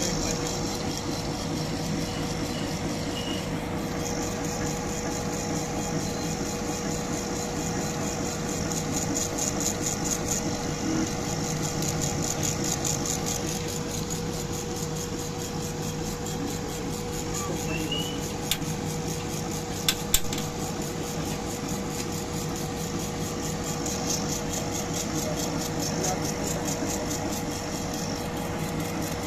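CO2 laser engraver running while it engraves a wooden tag: a steady machine hum with a constant tone, a fast, even ticking from the moving head, and a couple of sharp clicks about two-thirds of the way through.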